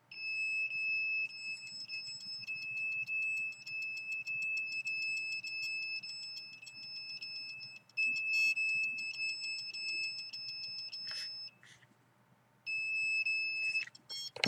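Electronic alarm tone from a handheld RF meter: a high, steady beep with a fast rapid chatter, held almost continuously and cutting out for about a second near the end before starting again.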